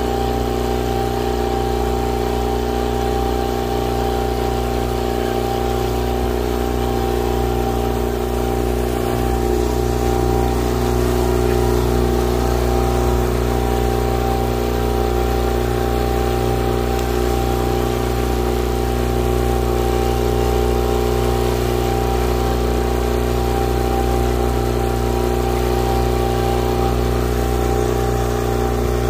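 Twin Mercury outboard motors running steadily at low trolling speed: a constant hum that keeps the same pitch throughout.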